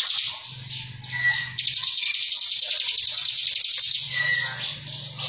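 A cigun (ciblek gunung) songbird singing a fast, rattling, machine-gun trill, the "ngebrem" song, for about two and a half seconds. Softer chirps come before and after it.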